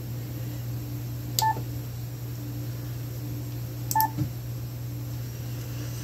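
Two short electronic key beeps from a Yaesu FTDX101MP transceiver as its front-panel buttons are pressed, each with a click, about two and a half seconds apart, over a steady low hum.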